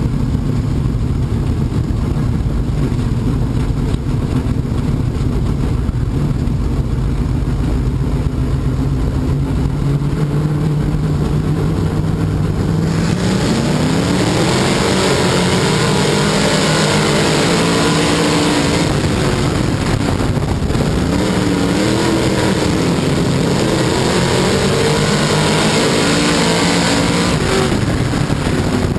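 Dirt-track modified stock car's V8 engine heard from inside the cockpit, running steadily at low revs at first. About thirteen seconds in it gets much louder as the throttle opens, and its pitch then rises and falls repeatedly as the driver gets on and off the throttle.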